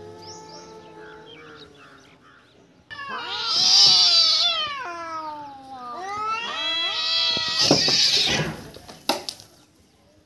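Domestic cat yowling: a faint drawn-out wail, then two long, loud yowls that waver and fall in pitch, starting about three and six seconds in. A few sharp clicks follow near the end.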